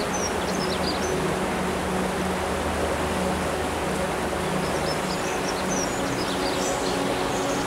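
Steady rush of river water, with birds chirping briefly around the start and again near the end, over a low steady hum.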